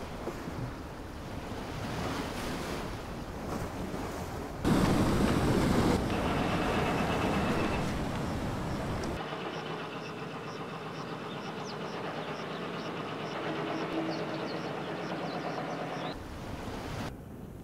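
Surf and wind noise with no music, broken by sudden cuts. A loud surge comes about five seconds in. From about nine seconds to sixteen the low rumble drops away, leaving a thinner hiss with a faint high ticking about twice a second.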